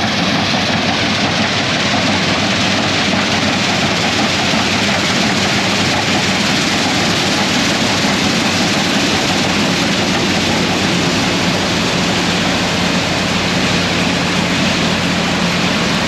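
New Holland TX62 combine harvester running steadily while cutting beans: a constant low engine hum under an even, loud rush of threshing and crop-handling noise.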